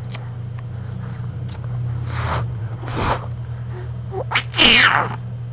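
Baby laughing: a couple of short breathy gasps, then a loud, squealing laugh near the end, over a steady low hum.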